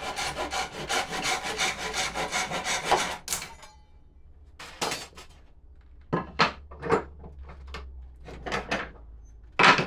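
Hand saw cutting wood in quick, even strokes, about five a second, stopping a little over three seconds in. After a pause come several separate, slower strokes, the last near the end the loudest.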